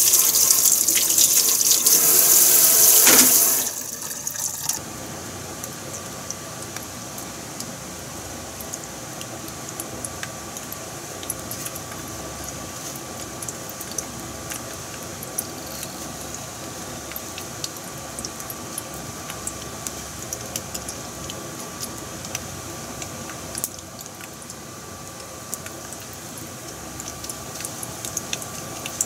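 A kitchen tap runs loudly for the first three and a half seconds and is then shut off. After that, oil heating in a frying pan gives a faint steady sizzle with scattered small pops from bread crumbs frying in it. The pops pick up near the end as a breaded beef cutlet goes into the oil.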